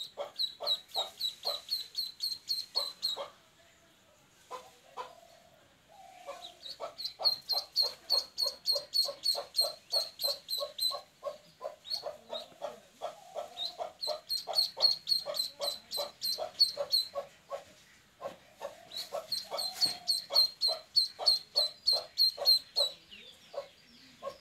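Duckling peeping loudly and insistently: high, sharp peeps about three or four a second in runs of a few seconds with short pauses, with a faster series of lower calls underneath.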